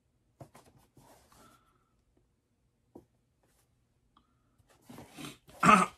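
Faint rustling and light taps of a cardboard box being turned over in the hands, in a small room. Near the end a loud short vocal sound from the man, falling in pitch, is the loudest thing.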